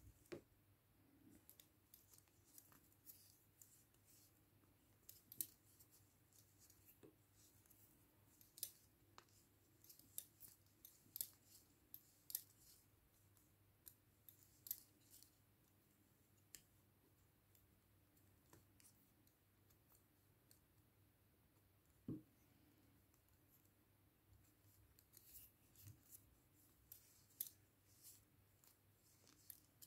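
Near silence broken by faint, irregular clicks of metal double-pointed knitting needles tapping against each other as stitches are worked.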